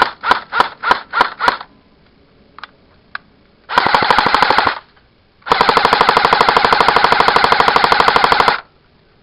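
Airsoft rifle firing: six single semi-automatic shots, then a short full-auto burst of about a second, then a longer full-auto burst of about three seconds. The rifle is being test-fired to check a feeding problem that the owner thinks could be the magazine.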